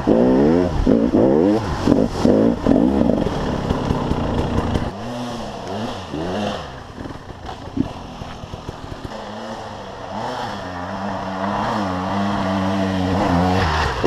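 KTM 300 EXC two-stroke enduro engine revving hard under quick throttle changes, its pitch swinging rapidly up and down. About five seconds in it drops to a quieter, low-rev run with occasional blips, then gradually builds again.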